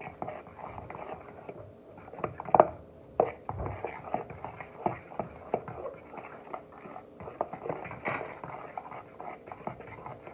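A fork stirring pancake batter in a mixing bowl, with irregular clicks and taps against the bowl, a couple of louder knocks about two and a half and three seconds in.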